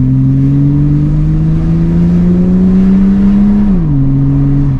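BMW 325e's 2.7-litre straight-six engine pulling under acceleration, its pitch rising slowly, then dropping about three and a half seconds in as the gearbox shifts up, after which it runs steady at lower revs.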